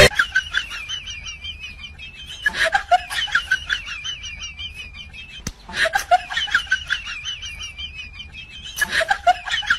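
Birds chirping steadily, with three short bursts of louder, quick calls about three seconds apart.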